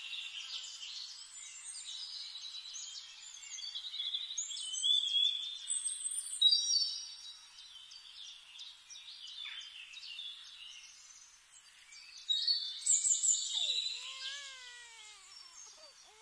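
Several birds chirping and whistling in woodland, a steady chorus of short high calls. Near the end a baby's wavering cry starts to come in faintly.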